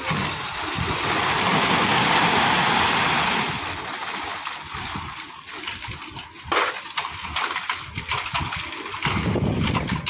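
Wet concrete rushing and sloshing out of a tipped lift-mixer bucket and sliding down a corrugated metal chute onto a pile, loudest about two seconds in and fading after four. Then shovels scrape and clank in the wet concrete as it is scooped into iron pans, with one sharp knock midway.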